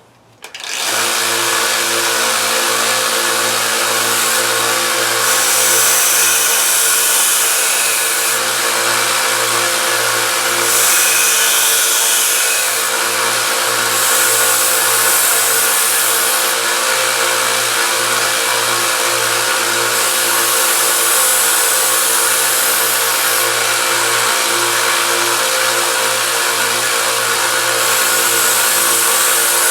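Harbor Freight 1x30 belt sander starting up about a second in and running steadily with a constant hum. A kitchen knife blade is pressed against the 150-grit belt in about five passes, each adding a high grinding hiss for two to three seconds.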